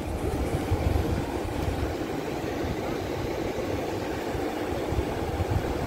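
Steady rush of a fast, shallow mountain river running over stones, with an uneven low rumble underneath.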